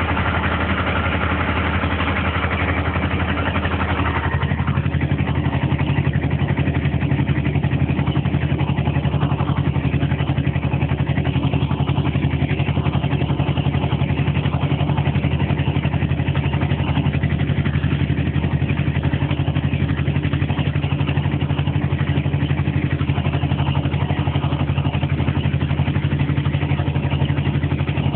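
The two-cylinder air-cooled diesel engine of a VTZ T-25A Vladimirec tractor running steadily. Its tone shifts about four seconds in, with less high clatter and a stronger low hum after that.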